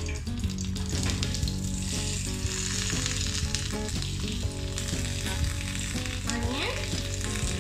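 Chopped onions dropped into hot oil in a kadai, sizzling and crackling steadily as they fry.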